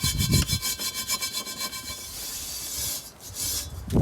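Steel wool scrubbing rust off a cast iron skillet in quick back-and-forth strokes, about five a second, turning into a steadier rasp about halfway through and stopping shortly before the end.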